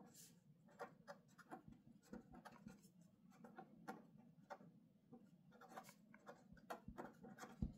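Faint scratching of a pen on paper in short, irregular strokes as words are handwritten.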